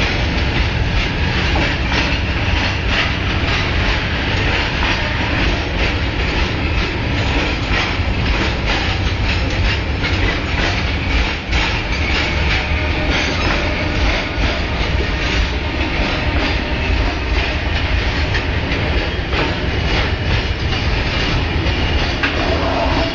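A long freight train rolling past close by: a steady rumble with a fast, continuous clickety-clack of wagon wheels over the rail joints.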